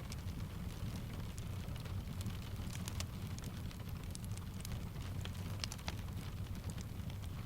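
Steady rain blended with a crackling fireplace: a constant low rumble and soft hiss, dotted with frequent sharp crackles and taps.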